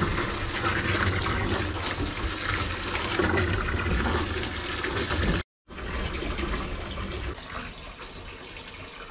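Running water filling a tub, a steady pouring wash. It cuts out for an instant about five and a half seconds in, then carries on a little quieter.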